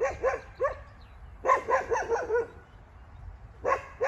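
Wolf barking in three quick bouts of several short barks each, each bark rising and falling in pitch.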